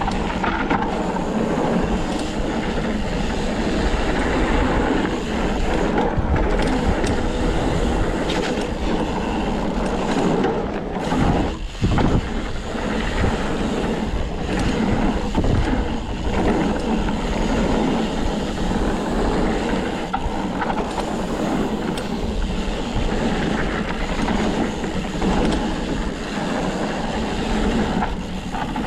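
Wind rushing over the microphone and tyres rolling over rocky trail as a Canfield Nimble 9 hardtail mountain bike is ridden, with frequent knocks and rattles from the bike over the rough ground.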